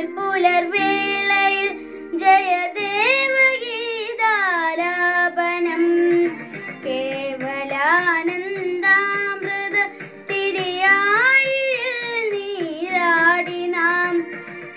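A high voice sings a melody full of sliding, ornamented notes over steady instrumental accompaniment.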